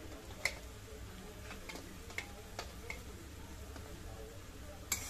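A long steel spoon clicking and scraping against a jar and the rim of a steel kadai as ground poppy-seed paste is scraped out onto potatoes: a run of short, sharp, irregular clicks, the loudest about half a second in and again near the end.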